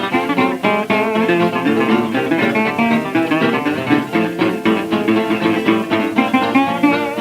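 Instrumental Hawaiian string band music from a 1929 78 rpm record: busy plucked guitar lines over a quick, even rhythm. Little treble, as is usual for an old disc.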